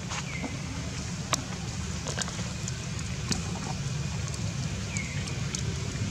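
Outdoor ambience: a steady low rumble with scattered light clicks, and two brief high chirps that fall in pitch, one just after the start and one about five seconds in.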